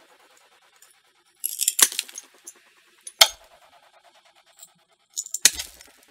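Mosaic nippers biting into a ceramic plate: three bouts of sharp cracking and clinking as the china snaps, about one and a half, three and five and a half seconds in, the middle one a single crack.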